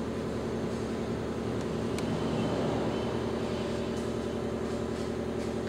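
A steady machine hum, even throughout, with a few faint ticks.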